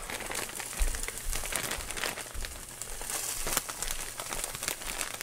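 Garlic, ginger and scallions frying in a hot pan, a steady sizzle full of fine crackles, with a soft low knock about a second in.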